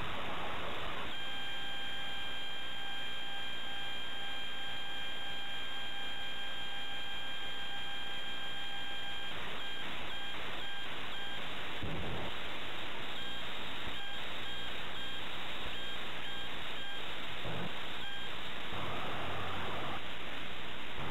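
Hiss from the audio track of a worn VHS tape with tracking errors, with a steady electronic beep tone that comes in about a second in, holds for about eight seconds, then cuts in and out in short choppy pieces.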